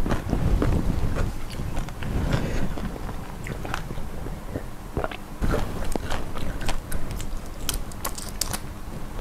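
Close-miked biting and chewing of chili prawns eaten in their shells, with many short, sharp crackly clicks through it.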